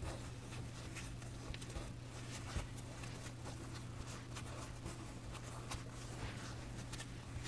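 Faint soft pats and rubbing of hands rolling and pressing a log of baguette dough to seal its seam on a floured pastry mat, with a few light ticks, over a low steady hum.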